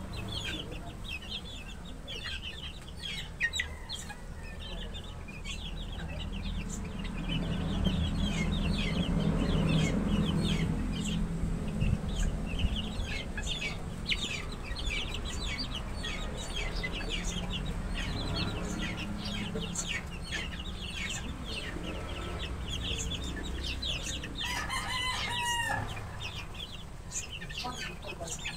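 A pen of young chickens peeping and chirping constantly, many short high calls overlapping. About 25 seconds in comes one longer call with several pitches, a rooster crowing. A low background rumble swells for a few seconds around the middle.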